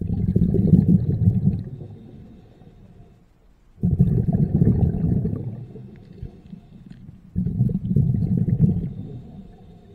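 Scuba diver's exhaled breath bubbling out of the regulator, heard underwater: three bursts of bubbles, at the start, about four seconds in and about seven and a half seconds in, each starting suddenly and fading over about two seconds, with quieter gaps between as the diver breathes in.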